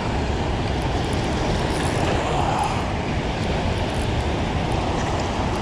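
Steady rushing of water pouring through a dam spillway, an even noise with no breaks.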